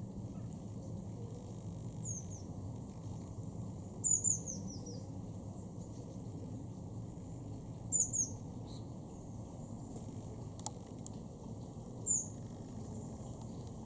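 Small bird's high, short falling chirps, in brief groups every few seconds, over a steady low rumble.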